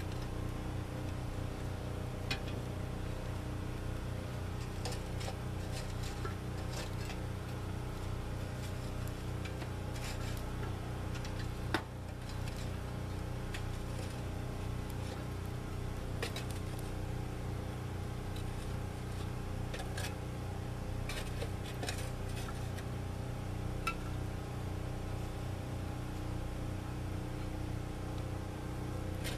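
Scattered clinks and scrapes of hot charcoal briquettes being tipped from a metal chimney starter onto a cast iron Dutch oven lid and pushed about with a metal spatula, one sharper clank about twelve seconds in. Under it a steady motor-like hum drones on.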